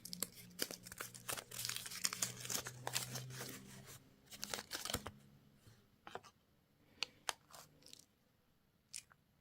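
A candy wrapper being crinkled and torn open, dense crackling for about four seconds and another burst about five seconds in, followed by a few separate light clicks.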